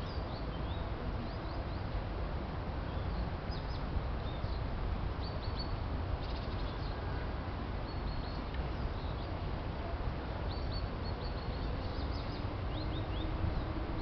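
Small stream running steadily with a low rushing sound, while small birds chirp again and again in short, high, quick little series.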